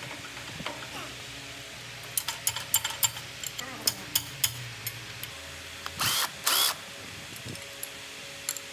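Wrench and socket work on a loader gearbox's bolts: a string of sharp metal clicks and clinks over a low steady hum, then two short loud hissing bursts about six seconds in.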